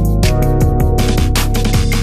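Background music: an electronic track with a steady beat, bass and synth or keyboard notes.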